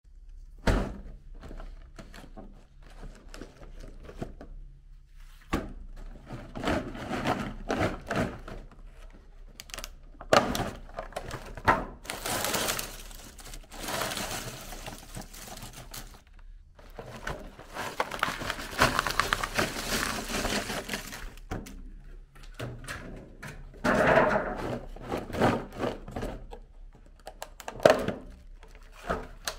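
Cellophane-wrapped hard candies rustling and clicking against each other and a plastic tray as a hand stirs and scoops through them, with scattered sharp knocks.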